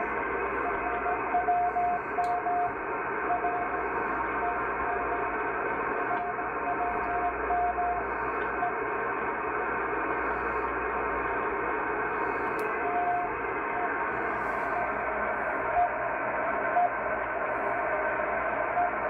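CW beat tone of the RWM Moscow time signal on 9996 kHz, heard through a shortwave receiver in CW mode with the MLA-30 magnetic loop antenna, over steady band noise and hiss. The tone is keyed in long dashes for the first several seconds, then comes as short beeps about a second apart near the end.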